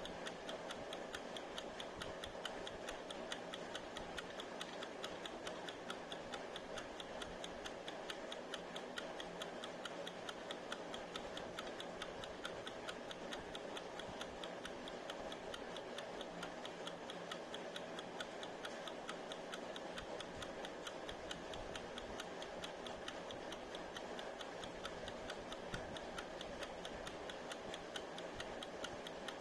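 Mechanical kitchen timer ticking with a fast, even tick that runs steadily.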